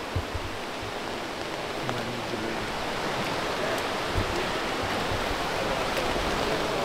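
Steady rushing water noise, slowly growing louder, with a few low thuds near the start and again about four seconds in.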